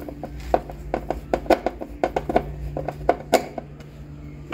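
Screwdriver working a terminal screw to fasten the ground wire on an air-conditioner condenser's terminal block: a string of irregular sharp metal clicks and taps.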